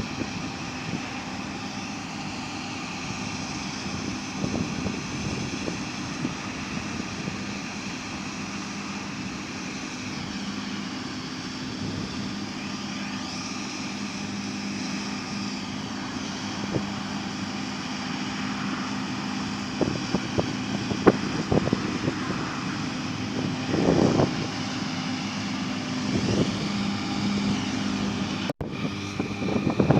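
Large John Deere diesel harvest machinery running steadily, its engine drone topped by a high mechanical whine. Irregular low rumbles come in the second half, and the sound drops out for an instant near the end.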